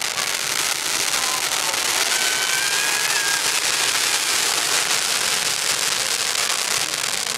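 Consumer firework fountain rated to 30 feet spraying sparks: a steady, loud hiss with crackling throughout, and a couple of faint whistles about two to three seconds in.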